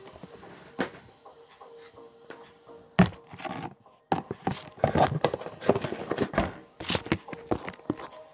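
Handling noise around a phone lying on a table: a sharp thump about three seconds in, then a run of irregular knocks and rustles as things are moved about and the phone is picked up near the end.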